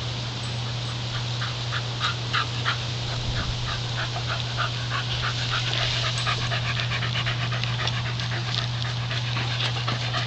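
A dog panting hard and fast close to the microphone, winded from running play. There are quick breaths about three to four a second, growing quicker and louder in the second half.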